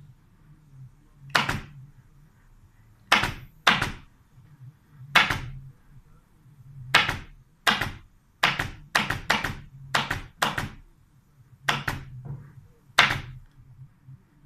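Fasteners being driven one after another into a sofa's wooden frame during upholstery work: about a dozen sharp shots at irregular intervals, several in quick pairs.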